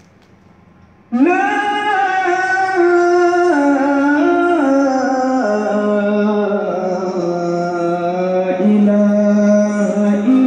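A single voice chanting in long held notes that step up and down in pitch. It starts suddenly about a second in.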